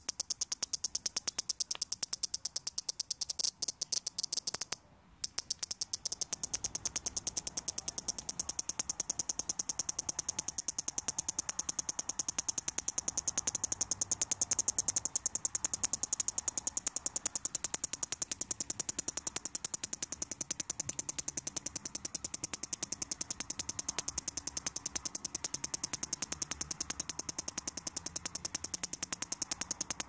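A headless cicada still producing its song: a fast, dry, high-pitched clicking rattle, with a short break about five seconds in. The calling goes on with no head, which the finder puts down to its nerves alone.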